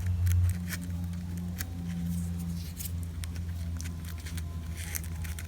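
Hands working with craft materials, ribbon and trim: scattered small clicks and rustles over a steady low hum.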